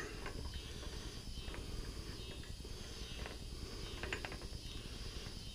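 A T-handle hex key turning the knockout tool's set screw, giving a few faint, irregular light clicks.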